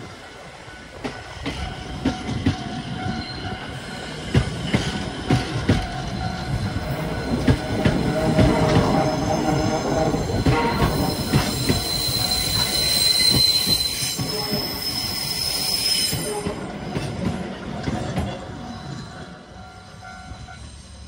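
Heritage passenger coaches rolling past close by on steel wheels, clattering and clicking over the rails. From about halfway the wheels squeal high and steadily on the curve for several seconds. The sound fades near the end as the train moves off.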